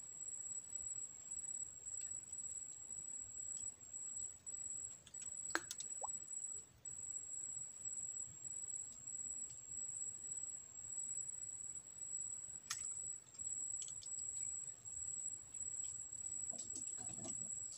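Insects buzzing in a steady, high-pitched drone that comes in repeated pulses. A few sharp clicks sound about six and thirteen seconds in, and a low knock comes near the end.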